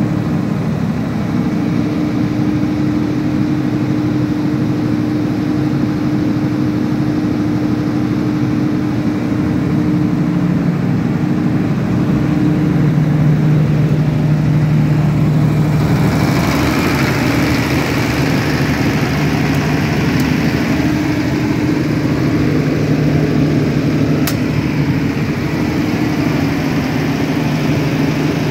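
Tsuzumi TDG-250 silent-type diesel generator set running steadily, its six-cylinder turbocharged engine humming inside the soundproof enclosure. About halfway through, the sound turns brighter and hissier.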